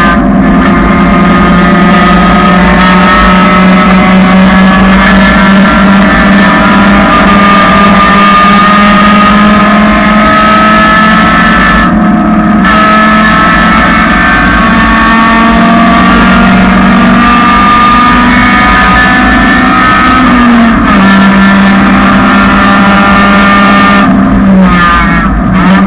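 1999 Honda Civic's four-cylinder engine running loud and steady at high revs, its pitch holding roughly level with small rises and falls, and a brief drop in the high end about halfway through and again near the end.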